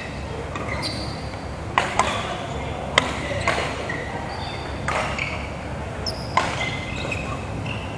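Badminton rally: several sharp cracks of rackets striking the shuttlecock, a second or two apart, the loudest about three seconds in, with short shoe squeaks on the court floor. The hits carry a hall echo.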